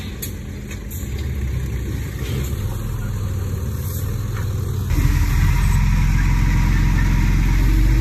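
Komatsu D20P bulldozer's diesel engine running, turning suddenly louder and deeper about five seconds in.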